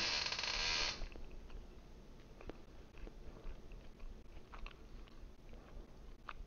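A loud rush of noise for about the first second, then a person chewing pizza with faint, scattered soft mouth clicks.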